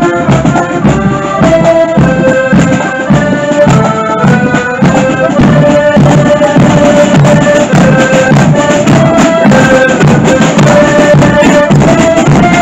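Accordion band playing a marching tune, several accordions holding the melody over drums striking a steady marching beat; the band gets louder about five seconds in.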